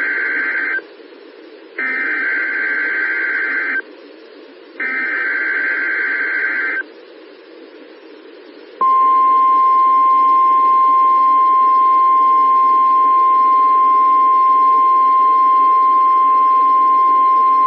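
NOAA Weather Radio weekly test heard over a weather radio receiver. First the tail of one SAME digital header burst, then two more buzzy data bursts about a second apart. After a pause of radio hiss comes the steady 1050 Hz warning alarm tone, held for about nine seconds.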